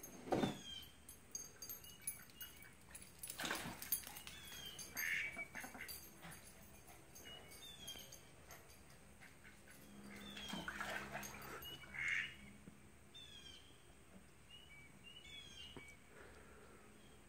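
Ducks quacking now and then, a few short calls spaced seconds apart, with faint high chirps of small birds in between.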